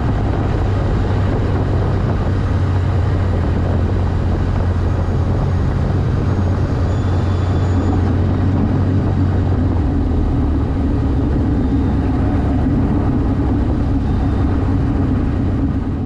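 Cessna 152's four-cylinder Lycoming O-235 engine and propeller running steadily, a dense drone heard from inside the cabin; a higher hum joins in about halfway through.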